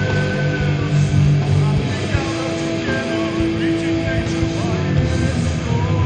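Live heavy metal band playing at full volume: distorted electric guitar over bass and drums, with long held notes ringing over the band.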